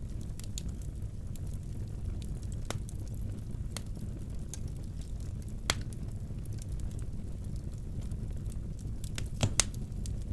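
Wood fire burning in a fireplace: a steady low rumble with scattered sharp cracks, the loudest a single pop a little over halfway and a quick cluster near the end.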